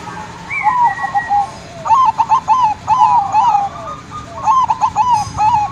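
Zebra dove (perkutut) cooing: quick runs of short, rolling coo notes in phrases about a second long, repeated several times.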